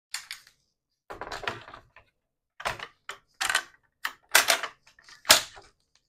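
Cardstock pieces and craft tools being handled and set down on a work table: a series of short knocks and paper rustles with brief pauses between.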